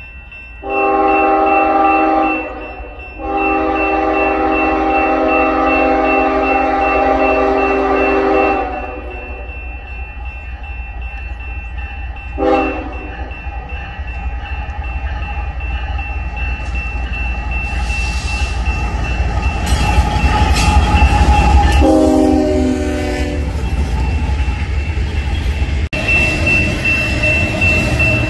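Union Pacific freight locomotive's air horn sounding the grade-crossing signal, long, long, short, long, as a double-stack container train approaches and passes. Under and after the blasts the locomotives and rolling cars make a growing rumble, with wheels clicking over the rails near the end.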